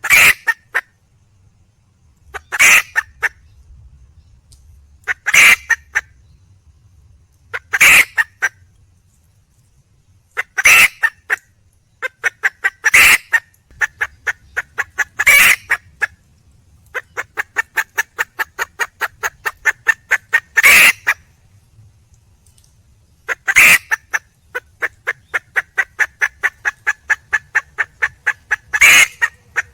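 Junglefowl (wild chicken) hen calling for a mate: a loud burst of clucks about every two and a half seconds. From about twelve seconds in, runs of rapid short clucks, several a second, fill the gaps between the bursts.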